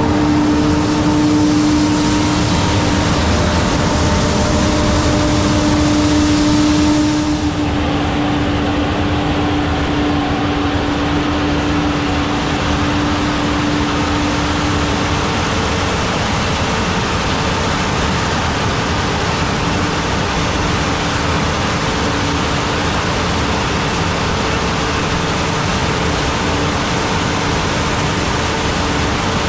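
A vehicle engine running steadily with a loud, even rush of noise and a steady hum; the higher hiss drops about seven seconds in, and the hum fades out about halfway through.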